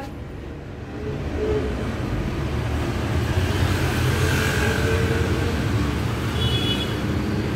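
Steady low background rumble that swells about a second in and then holds, with no distinct sharp click standing out.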